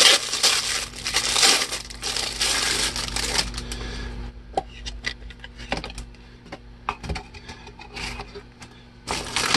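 Clear plastic wrap crinkling as it is peeled off a small hard case, for about the first four seconds. After that come scattered light clicks and taps as the case is opened and things in the cardboard box are handled.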